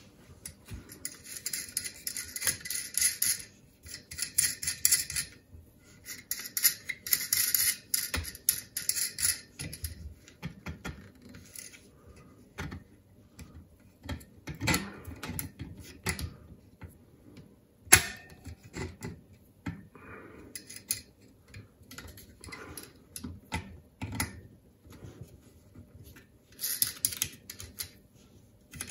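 Clicking and rattling of a 3D-printed plastic motor plate being forced down over the threaded steel rods of a homemade variable capacitor. Dense runs of rapid ticks come for the first few seconds and again about six to nine seconds in, then scattered clicks, with one sharp click about eighteen seconds in.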